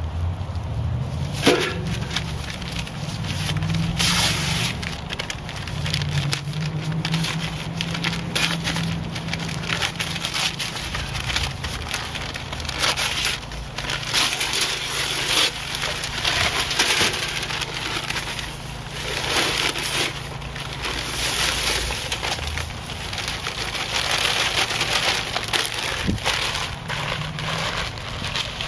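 60 lb paper bags of dry concrete mix being shaken and emptied into a wheelbarrow: bag paper crackling and crinkling over the rush of dry mix pouring out, in repeated surges.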